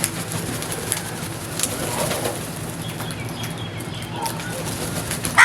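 Faint bird calls over a steady background hum and noise, with a loud crow caw starting right at the end.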